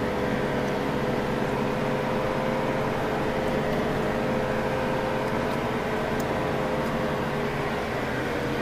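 Car driving slowly, heard from inside the cabin: a steady engine and road-noise hum with a held drone whose pitch sinks slightly near the end.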